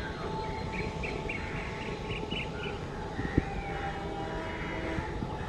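Birds chirping in a quick run of short calls over a steady low rumble from a distant approaching electric-hauled express train, with a single sharp knock about three and a half seconds in.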